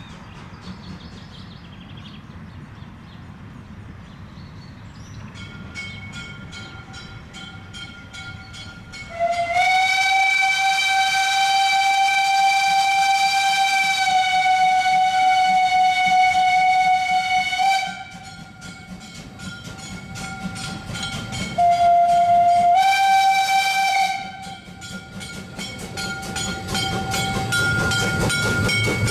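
Steam whistle of the narrow-gauge tank locomotive 'Spreewald' sounding one long blast of about eight seconds and then a shorter second blast that steps up in pitch partway through, over a steady rhythmic beat from the approaching train, which grows louder as it passes close by near the end.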